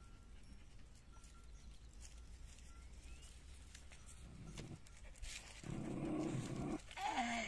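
Dogs vocalising at each other over a dug hole: a short growl about two-thirds of the way in, then a brief whine that falls in pitch near the end.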